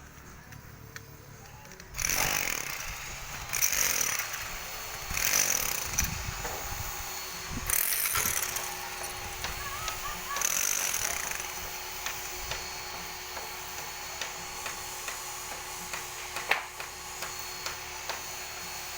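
Construction-site noise: after a quieter start, a series of loud noisy bursts, each about a second long, then a steadier din with scattered clicks and one sharp knock.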